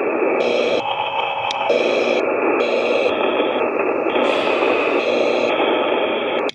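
Spirit box sweeping through radio stations: loud hiss of static that changes character every half second or so, with faint clicks between steps. It cuts off abruptly near the end.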